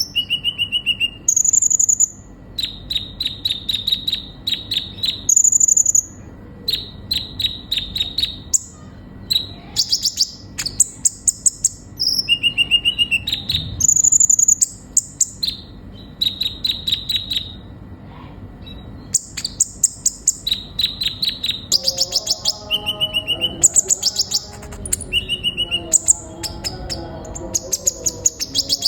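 Sunbird ('kolibri ninja') singing energetically: fast runs of high, sharp chips and trills broken by short held whistles, one phrase after another with barely a pause.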